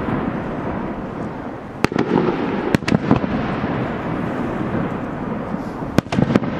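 Fireworks display: sharp shell bursts about two seconds in, twice around three seconds, and a quick cluster near the end, over a continuous dense noise.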